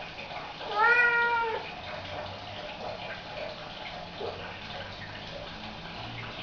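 A domestic cat meowing once, about a second in, a single drawn-out call that rises a little, holds and falls away.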